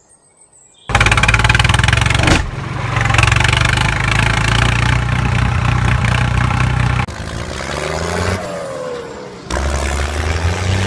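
A heavy vehicle engine sound effect, not the toy itself: the engine starts suddenly about a second in and runs loud with a steady low rumble. A little past halfway it drops in level while its pitch slides down and up, then comes back loud near the end.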